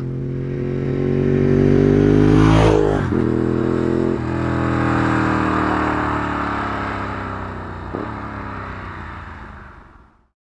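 Ducati 748 SP's V-twin on a 50mm Termignoni race exhaust going past. It grows louder as it approaches, drops in pitch as it passes about three seconds in, then pulls away with a break in the note at about four seconds and again near eight, likely gear changes, fading out near the end.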